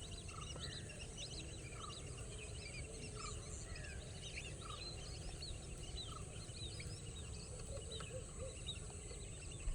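Many birds chirping and calling, with one short note repeating about once a second, over a steady high hiss and a low rumble.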